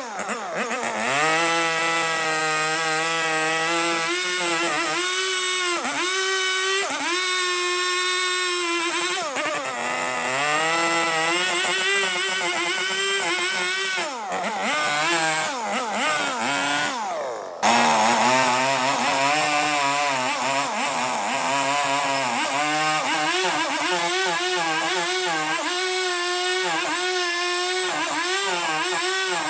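A power tool motor running continuously on wood, its pitch repeatedly dipping and recovering as it bogs under load and frees up. The sound changes abruptly a little over halfway through.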